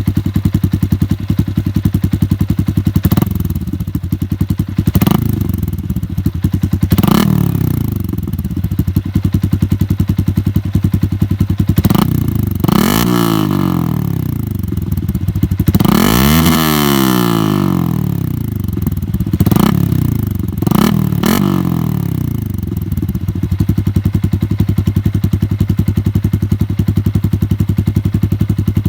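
Yamaha Sniper 150's single-cylinder engine idling through an SC Project exhaust muffler, with a series of short throttle blips. The longest and highest rev comes about two-thirds of the way through, and each blip falls back to idle.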